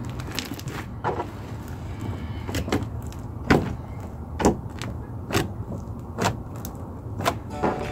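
Fluffy slime with foam beads being squeezed and poked by hand, giving a sharp pop or click roughly once a second over a steady low hum.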